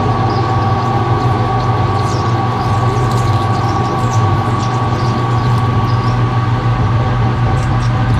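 Metal lathe running steadily while machining cold-rolled steel spacer stock, a constant low hum with a steady whine over it.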